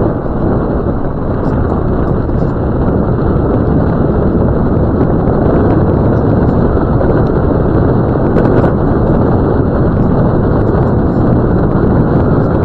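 Land Rover Discovery 2 driving along a gravel track: a loud, steady rumble of engine and tyres on gravel.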